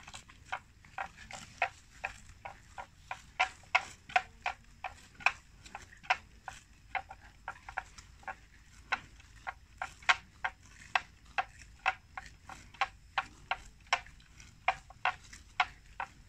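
Water buffalo cropping grass close by: a quick, uneven series of crisp rips as its mouth tears off mouthfuls, about two to three a second.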